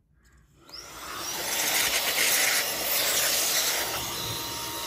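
Electric air duster blowing dust off a podcast mixing console: a steady rush of air that builds up under a second in and lasts a few seconds. Near the end it fades as the motor spins down with a falling whine.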